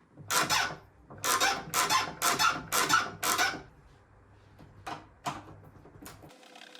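Interior door lever handle squeaking as it is pushed down and let back up, about six loud scraping squeaks in quick succession, then two fainter ones. The squeak comes from the lever's mechanism wearing dry with heavy use.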